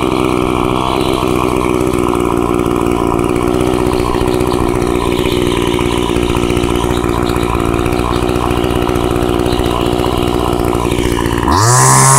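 Old Homelite small two-stroke engine idling steadily while its carburetor idle is adjusted after a cold start. Near the end it revs up sharply, rising in pitch and getting louder.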